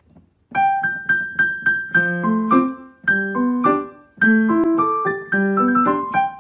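Background piano music: a simple melody of separate notes that ring and die away. It starts after a brief silence and pauses briefly twice.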